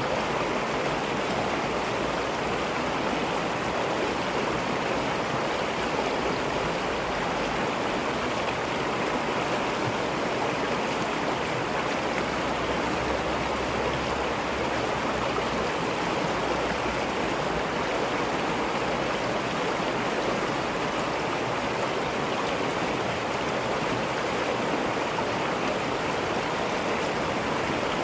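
Mountain stream flowing over rocks, a steady rushing and babbling of clear running water.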